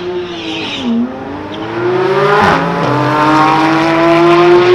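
Two sports cars, a Porsche 911 and a Mercedes-AMG GT, launching from a drag strip start line. The engines are held at revs, then accelerate hard with rising pitch, and an upshift comes about two and a half seconds in before the revs climb again.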